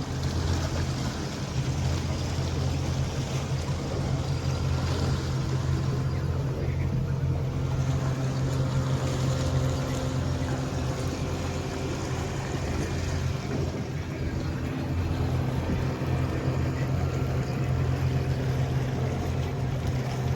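A tour boat's motor running steadily at cruising speed, a constant low hum with a hiss of wind and water over it.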